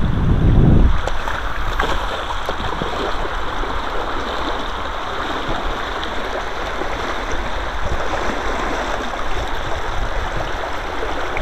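Steady hiss of rain falling on a river's surface. A gust of wind buffets the microphone for about the first second.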